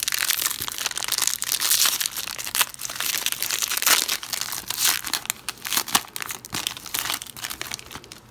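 Plastic wrapper of a Panini football card hanger pack crinkling as it is handled and torn open. The dense crackling thins out near the end.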